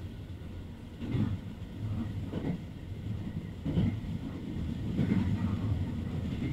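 Cabin sound of a JR Hokkaido H100 "DECMO" diesel-electric railcar under way: a steady low rumble, with a clack from the wheels over rail joints about every second and a half.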